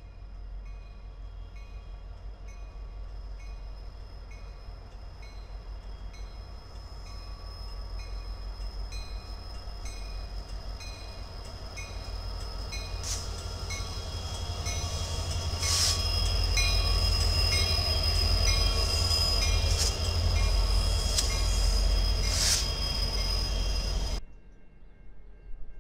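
Union Pacific diesel freight locomotives approaching and passing, their low engine and rail rumble growing louder for about sixteen seconds, with a steady high ring and a few sharp knocks over it. The sound cuts off abruptly near the end.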